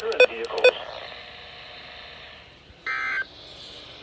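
Short electronic beeps from NOAA weather radios in the first second. About three seconds in comes a brief buzzy data burst of SAME tones, the end-of-message signal that closes an EAS alert. Faint hiss fills the gap between them.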